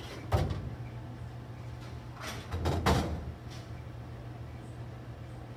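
Bowling alley sounds over a steady low hum: a sharp knock, then about two seconds later a longer clattering knock with a low rumble.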